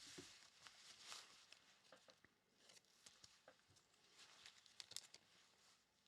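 Faint rustling and light clicks of trading cards being handled and slid into plastic sleeves and holders, in small scattered bursts with a few sharper clicks near the end.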